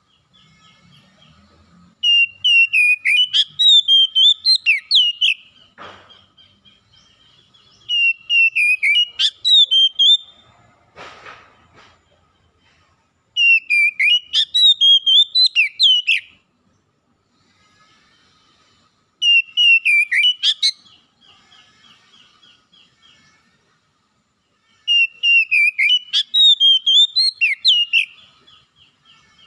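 Oriental magpie-robin singing: five loud phrases of rapid, sweeping whistled notes, each two to three seconds long and coming about every six seconds, with a faint steady trill between them.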